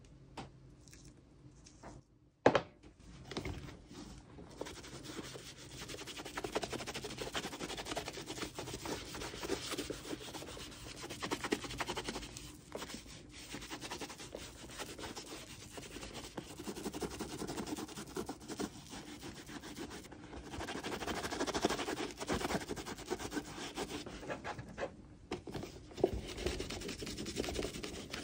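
A cloth rubbing saddle soap into crust calf leather boot uppers, with steady, uneven scrubbing strokes. There is a single sharp knock about two and a half seconds in, just before the rubbing starts.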